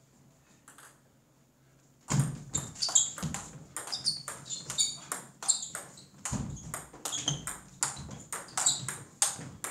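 Table tennis rally: the ball clicks in quick succession off the paddles and the table, several strikes a second, starting about two seconds in after a near-quiet moment.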